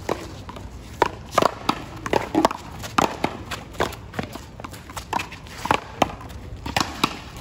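One-wall paddleball rally: the rubber ball smacks off the solid paddles and the concrete wall in sharp pops at an irregular pace, about one or two a second.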